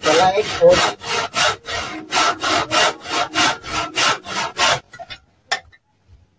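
Handsaw cutting through a wooden board with quick rasping strokes, about four a second. The strokes stop about five seconds in as the cut is finished, followed by a couple of light knocks.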